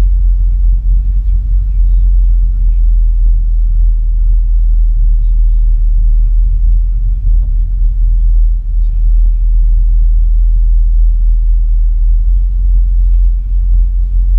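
Steady low rumble of a car driving along a road, its road and engine noise heard from inside the car.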